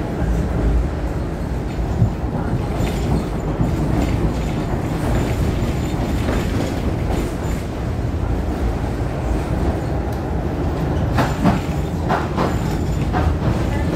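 V3A-93 articulated tram running along the track, heard from on board: a steady low rumble of wheels and running gear. A run of sharp clicks and knocks comes near the end.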